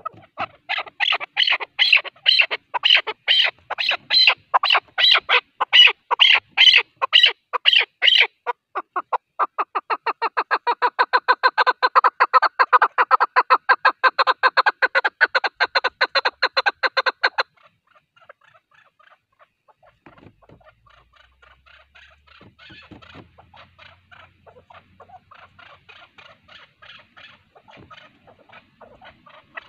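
Chukar partridge calling: a loud series of repeated notes, about three a second, then a faster, denser run of notes that stops abruptly a little past halfway. Fainter, scattered calls follow.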